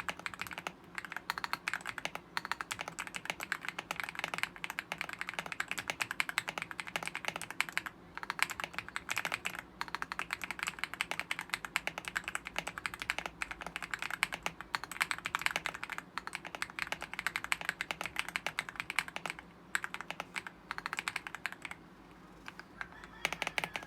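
Typing on an Aula S75 Pro mechanical keyboard with Star Vector switches and PBT XDA-profile keycaps: rapid, continuous keystrokes that thin out briefly near the end.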